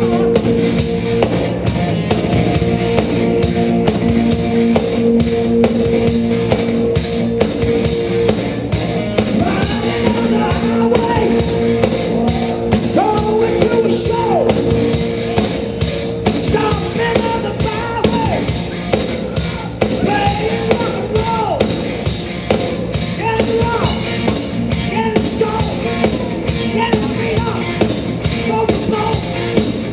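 Live hard rock band playing, with electric guitars, bass and drums keeping a steady beat. Held notes carry the first eight seconds, and sung vocal lines come in from about nine seconds in.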